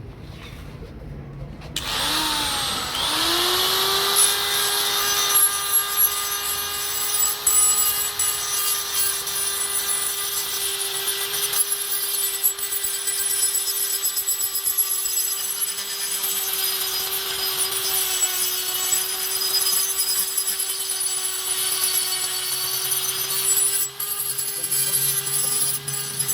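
Electric power tool spinning up about two seconds in, then running at a steady speed with a continuous abrasive scraping on the work; it starts to wind down at the very end.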